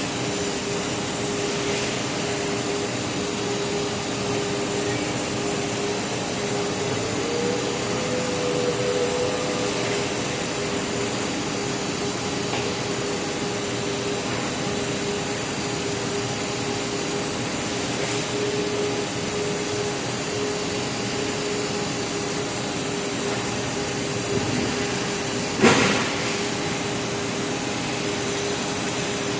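ABS/HIPS plastic sheet extrusion line running: a steady machine drone with a constant hum tone. A single sharp knock comes near the end.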